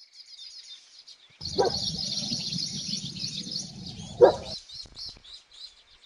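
Baya weaver colony chattering: dense, high, rapid chirping that sets in suddenly about a second and a half in and stops abruptly about four and a half seconds in, with fainter chirps before and after. Two short, louder, lower calls stand out, the louder one near the end of the chattering.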